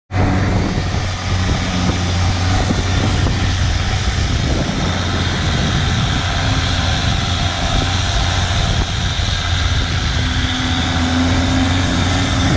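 Longtail boat engine running steadily at speed, a constant low drone, mixed with the rushing of water thrown up by the wake.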